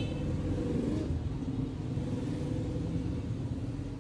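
Steady low background rumble, with a brief high tone right at the start.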